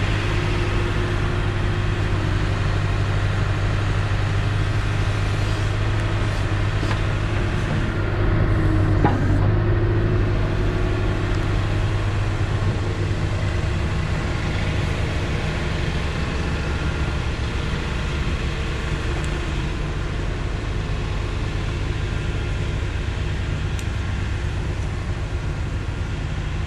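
A truck's engine idling steadily with a low hum, briefly louder about eight to ten seconds in.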